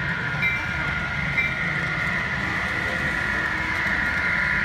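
Model passenger train running along the layout track, a steady hum with a faint whine, over the constant background din of a large exhibition hall.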